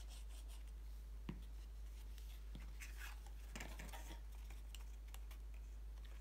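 Faint rustling and scraping of cardstock being handled, folded and pressed together by hand, with one light tap about a second in, over a low steady hum.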